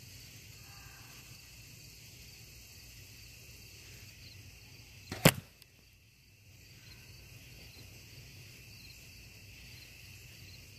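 An arrow shot into sand-filled bags strikes with a single sharp smack about five seconds in. A steady high insect drone carries on behind it.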